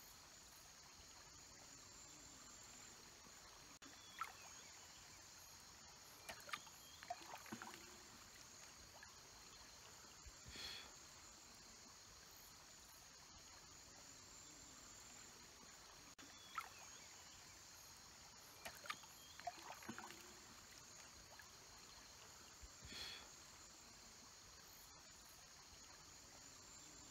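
Faint rainforest ambience: a steady, high-pitched insect drone, broken a few times by brief sharp calls or splashes, some falling in pitch. The same run of sounds repeats after about twelve seconds, like a looped nature track.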